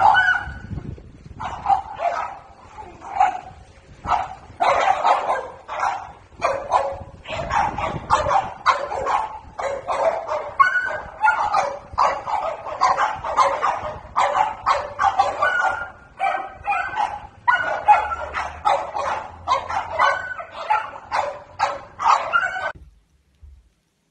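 A beagle barking over and over in short, loud barks, two to three a second, which stop about a second before the end.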